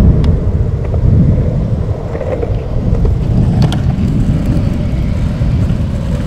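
Loud, uneven low rumble of street ambience, with a few faint ticks.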